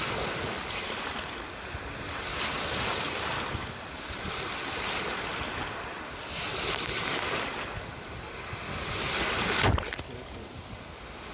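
Sea waves washing in and drawing back, swelling every two or three seconds, with wind buffeting the microphone. Near the end comes one short, sharp hit, the loudest moment.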